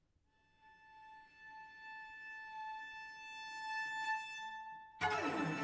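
Three cellos playing: a single high note held on a cello, starting faintly and swelling steadily; about five seconds in, the cellos come in together loudly with low notes beneath it.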